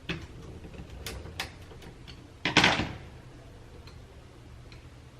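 Small sharp clicks, then one short scraping rattle about halfway through, as a hand tool works small components off a little circuit board.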